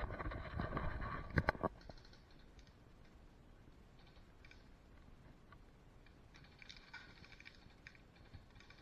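Close rustling and handling noise, with two sharp clicks in quick succession about a second and a half in, then faint scattered clicking and ticking.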